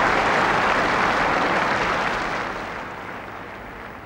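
Large stadium crowd applauding. The applause dies away steadily from about halfway through.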